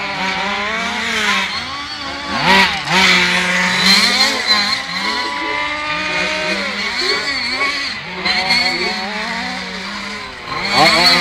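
Several radio-controlled model cars lapping a track, their small motors running at high revs with pitches that rise and fall over and across each other as the cars accelerate and slow.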